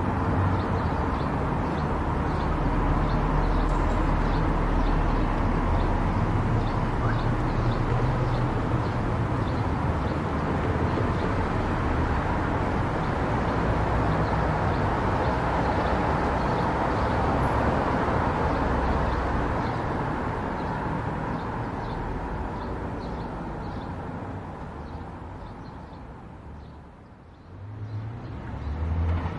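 Car driving along a road: steady engine and tyre noise. It fades to its quietest about two seconds before the end, then picks up again.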